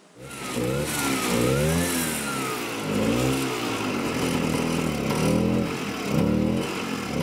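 A motor engine revving up and down repeatedly, its pitch rising and falling about five times.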